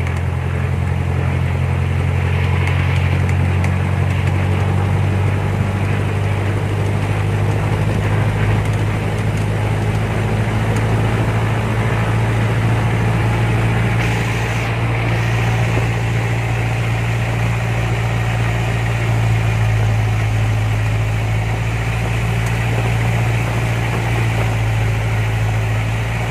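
Cessna 172's piston engine and propeller running steadily, heard from inside the cockpit, during the pre-flight engine run-up.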